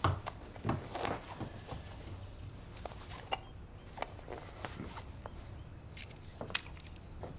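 Footsteps and shuffling, with a few irregular short knocks and scuffs.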